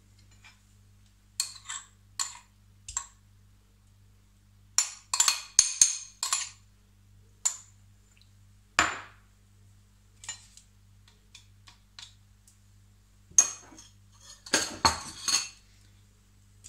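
A metal spoon clinking against a ceramic bowl and the pan as chunks of butter are spooned into hot oil, then a plastic spatula knocking in the pan near the end. The clinks and knocks are sharp and separate and come in clusters, over a faint steady low hum.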